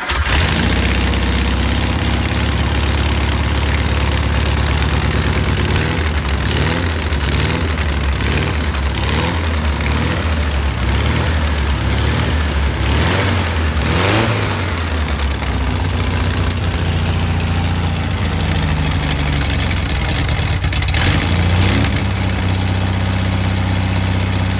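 Air-cooled Volkswagen 1600 flat-four engine, just started, running on a stand. The revs rise and fall several times in the middle stretch, dip and pick up again near the end, then it settles to a steady idle.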